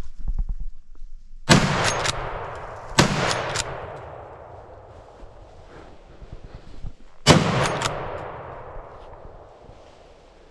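Three close gunshots from a hunting gun fired at driven wild boar. The first two are about a second and a half apart and the third comes about four seconds later, each echoing and fading away through the woods.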